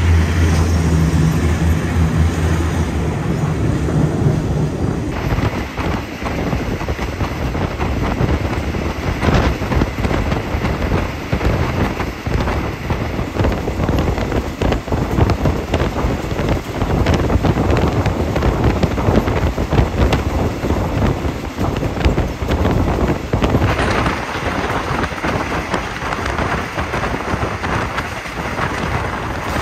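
Ordinary passenger train running, heard from on board: a loud, dense rushing noise full of crackling buffets, with a low hum underneath that stops about four seconds in.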